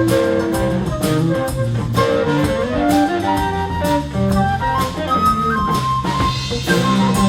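Blues band playing an instrumental break: a lead instrument takes an extended solo over drums and bass, with no singing.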